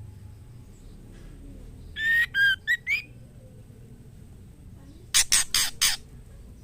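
Female white-rumped shama calling for a male: a short phrase of about four whistled notes rising and falling in pitch about two seconds in, then a quick run of four short harsh notes near the end.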